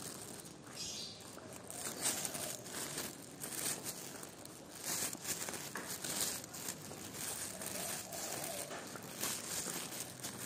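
Traditional market ambience: close, irregular crinkling and rustling of goods and wrappers being handled, with faint voices of sellers and buyers in the background.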